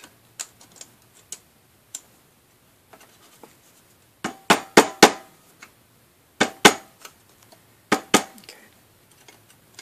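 Steel dental pick clicking and scraping in the set-screw hole of a Shopsmith Mark V headstock as it digs out putty. Scattered light ticks, then groups of sharper clicks with a faint ring about halfway through and again near the end.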